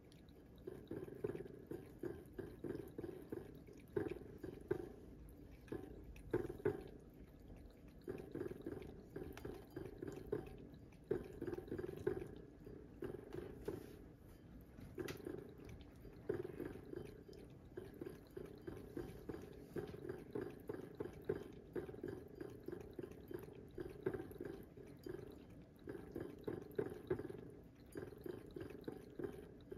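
A cat lapping water from a bowl: quick, even wet laps in runs, broken now and then by short pauses.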